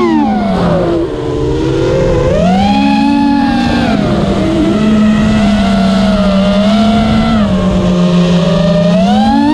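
Shendrones Mixuko FPV quadcopter's brushless motors whining loudly, the pitch sliding down and up with the throttle over a rushing noise, and climbing sharply near the end.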